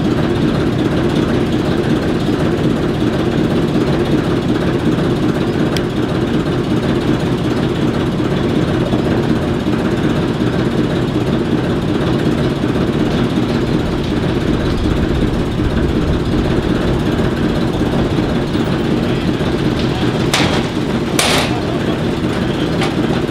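ALCO switcher locomotive diesel engine idling steadily, a low even hum. Near the end come two short bursts of hiss about a second apart.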